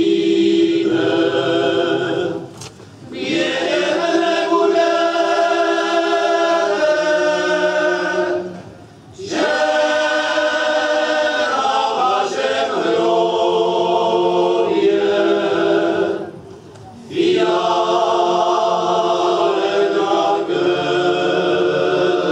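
Men's choir singing a Moravian folk song in harmony, in long held phrases with three short breaks between them.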